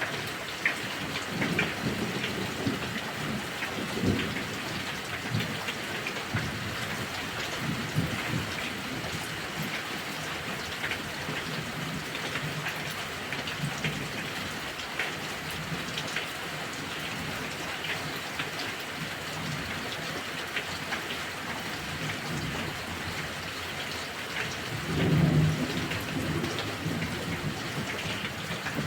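Heavy thunderstorm: steady heavy rain with individual drops ticking, under low rolling thunder, with the loudest rumble of thunder near the end.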